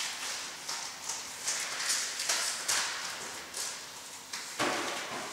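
White card mask rustling and tapping as hands adjust it on a dancer's head: a run of short scrapes and taps, a couple a second, with a fuller scrape near the end.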